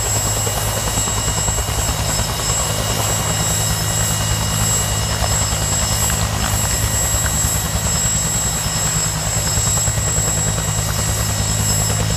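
Helicopter running steadily at close range: a fast rotor beat over a low drone, with a steady high turbine whine.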